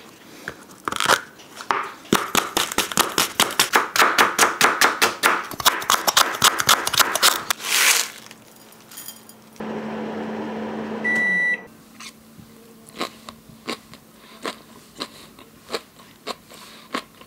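Chef's knife slicing green peppers on a wooden cutting board, quick even strokes at about five a second for several seconds. Then a microwave oven hums for about two seconds and beeps once as it finishes, followed by scattered light clicks.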